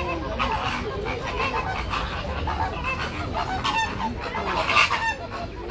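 A flock of flamingos calling, many short honking calls overlapping in a continuous chatter.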